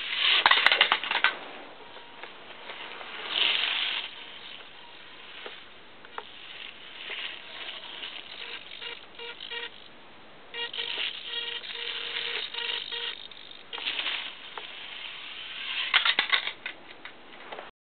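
Micro-sized RC truck with a Losi micro electric motor driving on concrete: bursts of high motor whine and small wheels rattling as it speeds up and passes close, loudest right at the start, about three and a half seconds in, and near the end. In the middle stretch a chopped, steady whine as it runs at lower speed.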